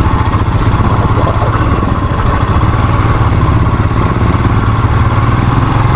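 Royal Enfield Himalayan's 411 cc single-cylinder engine running loud and steady at low revs, its firing pulses even throughout.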